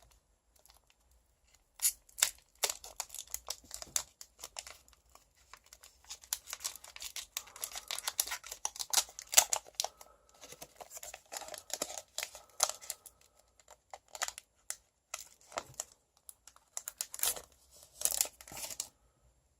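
Foil wrapper of a Pokémon TCG booster pack being torn open and crinkled by hand, a run of sharp crackles and rustles in clusters with short pauses.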